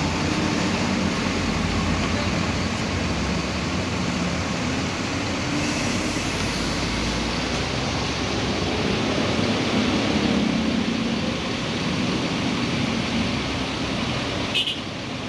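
A vehicle on the move: steady engine hum with road noise, a short click near the end.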